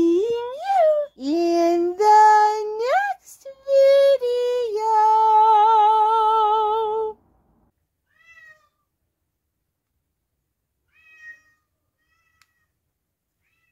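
A string of cat meows, sliding up and down in pitch, ending in one long wavering meow that stops about seven seconds in; after it, two faint short chirps.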